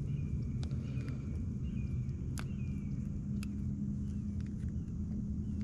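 Outdoor ambience: a steady low hum with scattered light clicks and faint, high chirping calls.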